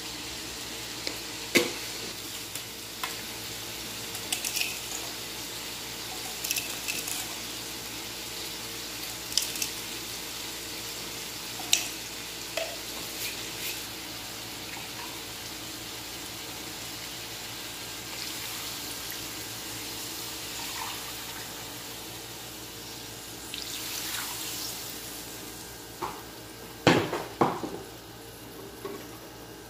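Water poured from a plastic jug into an aluminium wok of raw chicken drumsticks. A few sharp clinks of glass or utensils against the wok, loudest near the end, over a steady background hum.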